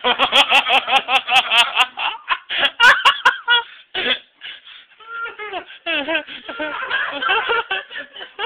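People laughing hard, with a rapid run of laugh pulses in the first two seconds, then broken bursts of laughter and giggling.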